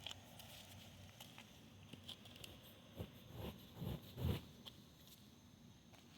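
Faint soft footsteps: a run of about four low thuds between three and four and a half seconds in, among scattered light ticks.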